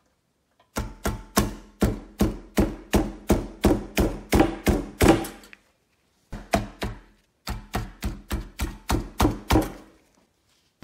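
Repeated sharp taps driven through a wooden dowel set in a hole in the sheet-metal frame of an antique toy locomotive, about three a second: a long run, a short pair, then a second run, the thin metal ringing briefly after each tap.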